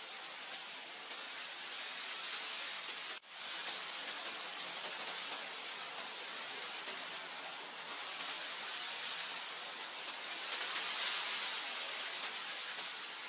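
Wind blowing across grassland: a steady hiss that swells and eases in slow gusts, strongest late on. It drops out for an instant about three seconds in.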